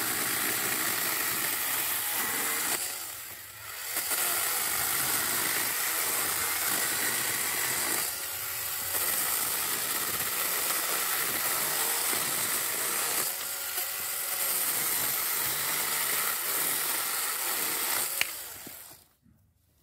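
Worx WG324E 20V cordless pruning chainsaw cutting through a thin tree trunk, its electric motor and chain running steadily under load. It eases off briefly a few seconds in, and the motor stops near the end as the cut is finished.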